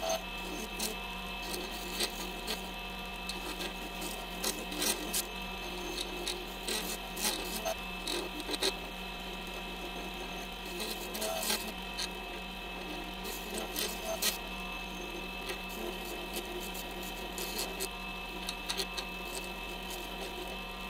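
Small lathe running with a steady motor whine and hum while a carbide turning tool cuts an acrylic pen blank spinning on a mandrel, with irregular scraping and ticking as the tool bites and shavings come off.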